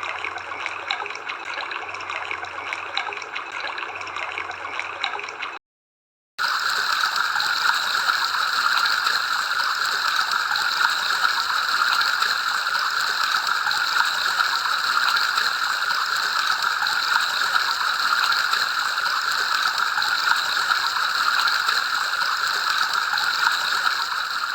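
Flowing river water, a steady rushing and gurgling. About five and a half seconds in it cuts out for under a second, then comes back as a louder, brighter rush of water.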